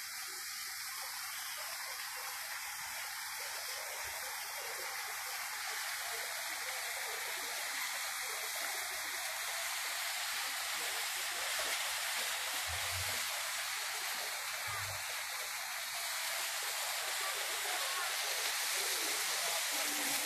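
Park fountain's water jets splashing and falling into the basin, a steady rushing that grows gradually louder.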